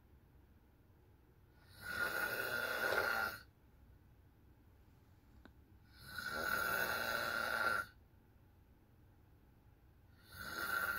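A person snoring in sleep: snores come about every four seconds, each lasting close to two seconds, with quiet breathing pauses between; a third snore begins near the end.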